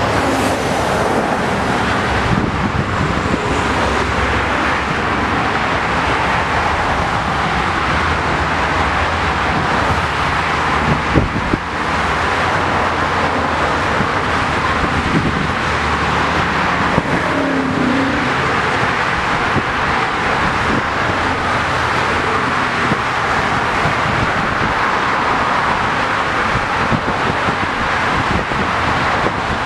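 Busy multi-lane highway traffic: cars, SUVs and vans passing at speed, a steady wash of engine and tyre noise.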